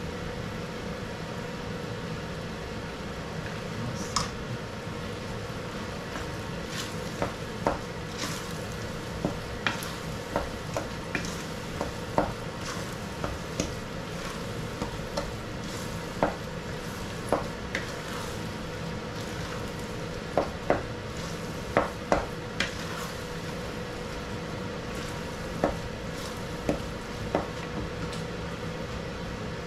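A utensil stirring a thick, sticky mix of glutinous rice and caramelized sugar in a pan for biko, with irregular knocks and scrapes against the pan over a steady low hiss.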